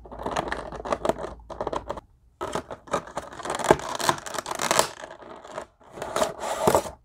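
An action figure is pressed down into its thin clear plastic packaging tray and the cardboard box is handled. Irregular scraping and rustling of plastic and cardboard comes in bursts, with short pauses about two seconds in and near the end.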